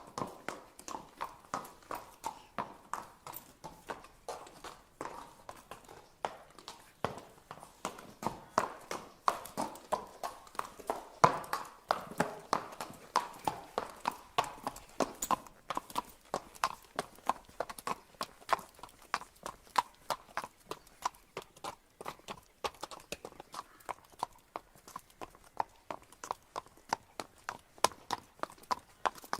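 A horse walking, its hooves striking hard ground in a steady, even beat of about three to four hoof strikes a second.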